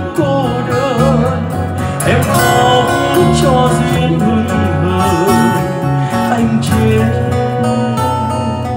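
Live acoustic ballad: a man singing long, wavering notes into a microphone over strummed and plucked acoustic guitar accompaniment. The music eases down in loudness near the end.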